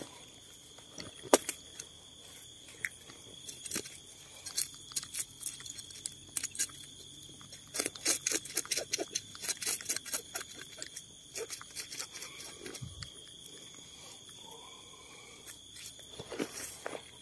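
Dry grass, twigs and leaves crackling and rustling under hands close to the microphone, in irregular clicks that are thickest around the middle. Behind it runs a steady high-pitched drone of night insects.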